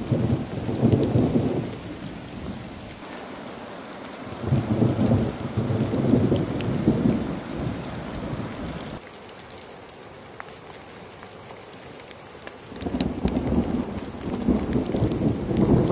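Steady rain falling in the forest, with scattered sharp ticks of drops, and a low rumble that comes in three spells: at the start, through the middle, and again near the end.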